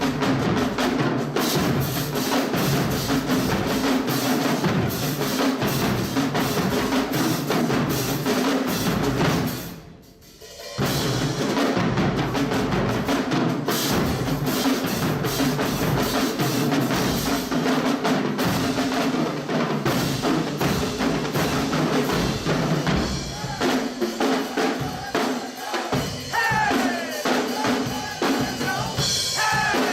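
Drum-driven music: bass and snare drums keep a busy, steady beat, which drops out briefly about ten seconds in and then resumes.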